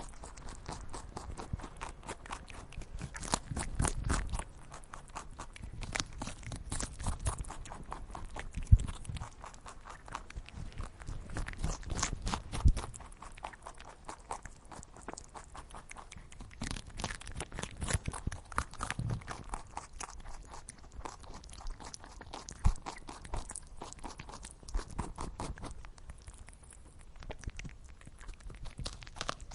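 A rabbit eating cucumber: fast, crunchy chewing clicks in uneven bursts, with a few sharper, louder crunching bites.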